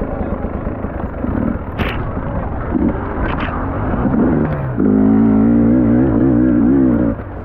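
Motocross bike engine revving under hard throttle, its pitch climbing and dropping with gear changes; about five seconds in it goes loud and high for two seconds, then cuts back just before the end.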